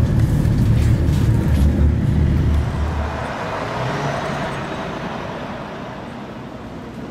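Steady low rumble of a tram running along its track, heard from on board, which stops abruptly about three seconds in. Then quieter street traffic, with a vehicle passing that swells and fades around four seconds in.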